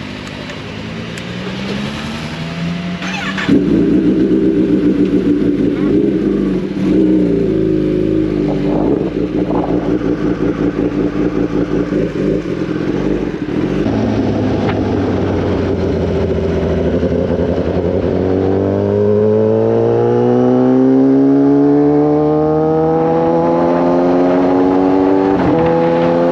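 Kawasaki ZX-10R's inline-four engine pulling away: it gets louder about three and a half seconds in, runs with a pulsing beat at low revs, then the revs climb steadily through the last third as the bike accelerates.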